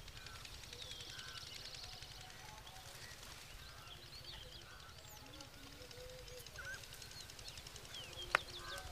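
Faint outdoor ambience of birds chirping and calling over a steady low hum, with a single sharp click near the end.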